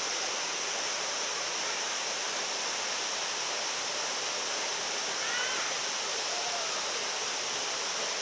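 Waterfall pouring steadily: an even, unbroken rush of falling water. A faint distant voice calls briefly about five seconds in.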